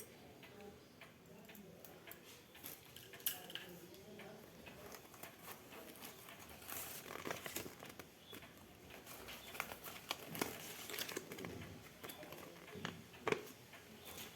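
Small handling noises from a blood pressure kit being unpacked: soft rustling with scattered clicks and taps, and a sharper knock about three seconds in and again near the end.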